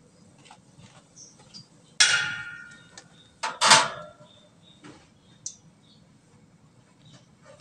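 Metal cooking utensils clanking against the frying pan and the stainless wire rack: one sharp clatter about two seconds in, then two more clanks close together a second and a half later, with a few lighter ticks.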